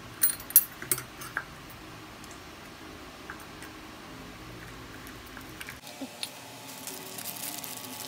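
Light metallic clicks and clinks as a steel bicycle disc brake rotor is handled and seated on a wheel hub, loudest in the first second and a half, with a few small ticks after. Near the end comes a soft crinkly rustle of a small plastic parts bag.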